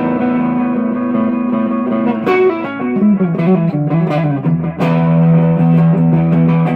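Electric guitar played through a Donner Yellow Fall delay pedal and a 5150 amp. A note is held for about two seconds, then comes a quick descending run of notes, then another long sustained note from about five seconds in.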